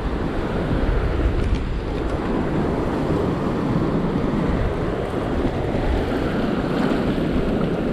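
Steady wind noise on the microphone, with the wash of the sea beneath it.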